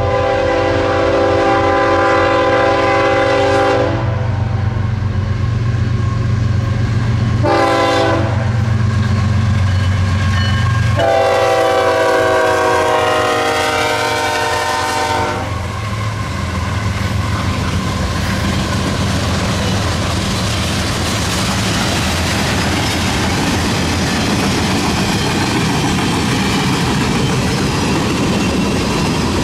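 Locomotive air horn sounding a chord in the grade-crossing pattern: a long blast, a short one about 8 seconds in, and a final long blast, over the steady drone of the diesel engine. After the last blast the train rumbles past, wheels clattering on the rails.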